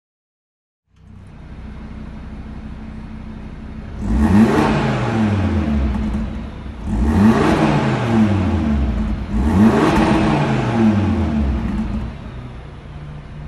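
Audi RS Q3's turbocharged 2.5-litre five-cylinder engine, exhaust valves closed, starts idling about a second in, then is revved three times while stationary, each rev rising and falling back, before settling to idle again.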